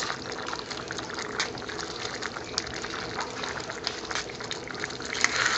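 Spoon stirring a thick, simmering onion curry gravy in a stainless steel pan: continuous wet sloshing with many small clicks of the spoon and bubbles.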